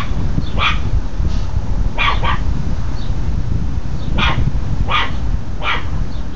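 Chihuahua puppy barking: about seven short, high-pitched barks at uneven intervals, some in quick pairs, over a steady low rumble.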